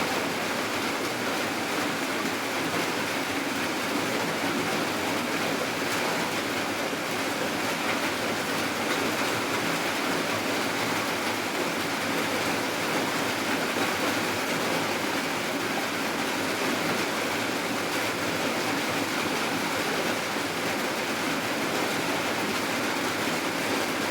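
Steady rainfall: an even, unbroken hiss that holds constant throughout.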